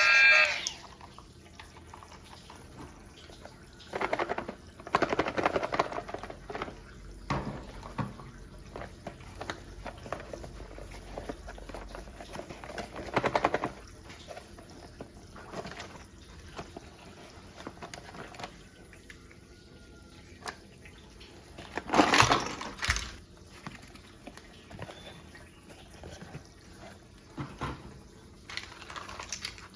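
Plastic toy pieces being handled and fitted together: scattered small clicks and rattles, with a few louder bursts of handling.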